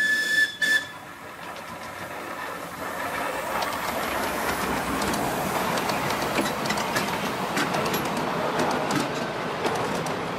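Miniature steam locomotive giving a short whistle blast, broken in two, then its train of passenger cars rolling past close by. The rolling noise grows louder over the first few seconds, with the wheels clicking over the rail joints.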